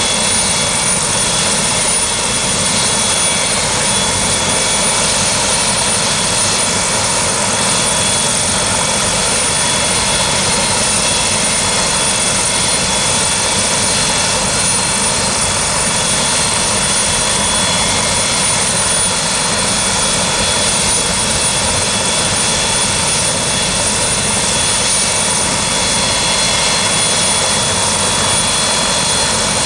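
Sheriff's helicopter running steadily: loud, even engine and rotor noise with a thin high whine held unchanged throughout.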